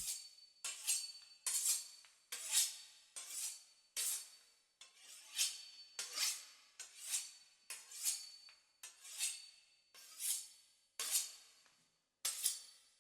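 Short, bright metallic clinks from kitchen utensils, repeating at a steady pace of about one a second, each dying away quickly.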